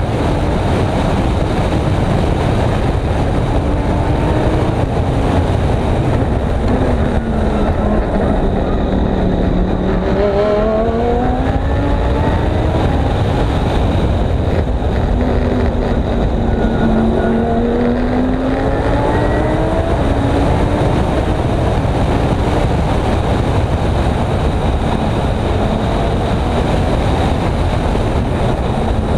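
Audi R8 LMS race car's V10 engine at speed, heard from the roof-mounted onboard camera. The revs rise and fall with gear changes and braking, dipping low twice and climbing again, over a heavy rush of wind and road noise.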